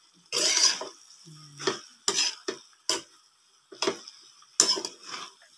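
A metal spatula scraping and clacking against a metal wok as green beans and broccoli are tossed in a thick sauce. There are about eight irregular strokes, with the longest scrape about half a second in.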